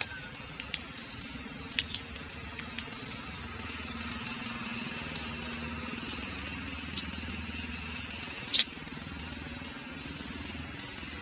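A motor engine hums steadily in the background and swells a little in the middle. A few sharp clicks come through it, the loudest about eight and a half seconds in.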